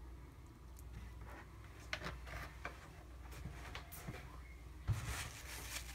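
Faint handling noises of oiled cast-iron waffle iron plates and a paper towel being moved about on a cloth towel: small scrapes and clicks, then a single knock near the end followed by rustling.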